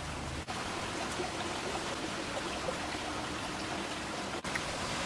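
A pot of squid pieces boiling hard over a wood fire: steady bubbling and seething of water.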